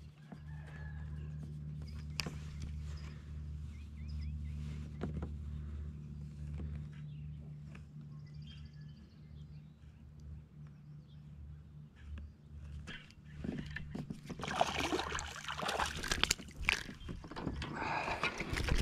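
A steady low hum with faint bird calls, then from about three-quarters of the way in, noisy water splashing and handling clatter with sharp clicks as a small largemouth bass is hooked on a drop shot and swung up to a kayak.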